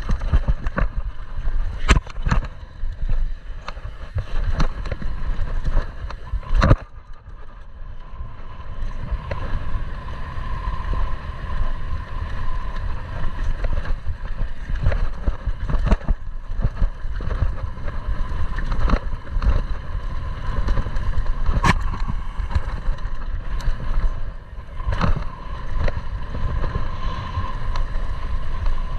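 A downhill mountain bike descending a rough dirt trail at speed: wind rumbles on the rider-mounted camera's microphone, and the bike clatters with sharp knocks and rattles as it hits bumps.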